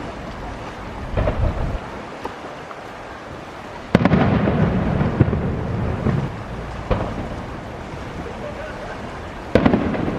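Aerial firework shells bursting. There is a loud boom about four seconds in, followed by a long low rumble. Another boom comes near the end, with smaller pops in between.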